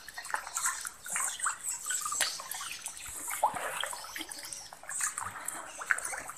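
Pond water splashing and trickling lightly and unevenly, with many small splashes, where a crowd of albino catfish moves at the surface.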